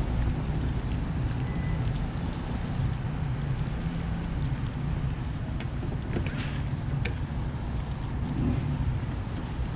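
A steady low engine rumble, like nearby road traffic, with a few faint clicks.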